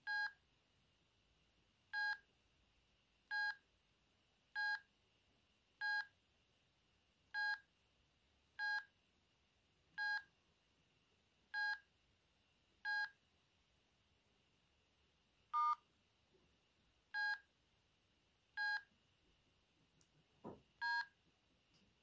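Sendo S360 mobile phone's key beeps: a short electronic beep with each button press, about one every second and a half, one of them at a different pitch, and a soft knock just before the last beep.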